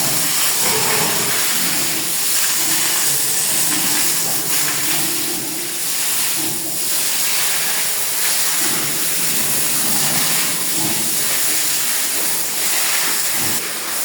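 Water spraying from a hose in a pig pen, a steady loud hiss with no break.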